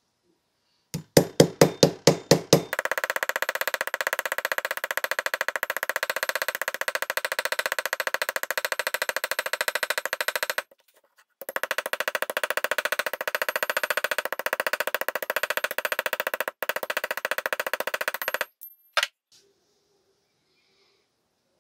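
A small hammer peening a brass hinge rivet over on a corer held in a vise. About eight heavier blows come first, then a long, rapid, even run of light metallic taps that pauses once about halfway. A couple of single taps come near the end.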